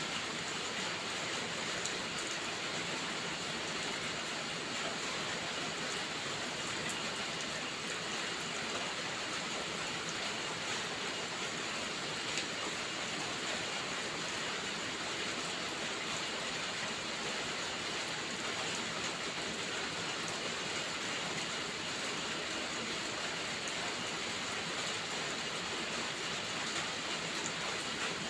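Steady heavy rain falling, an even hiss with no change, with a few faint crackles from a wood fire.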